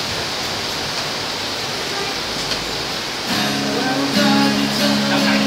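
Steady hiss of heavy rain. About three seconds in, an acoustic guitar starts playing sustained chords.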